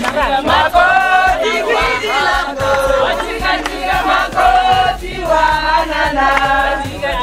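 A group of women singing and chanting together, with crowd voices mixed in.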